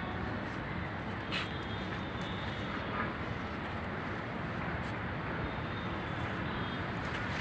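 Steady outdoor background noise, a dull low rumble with a faint hiss over it, with a couple of faint clicks.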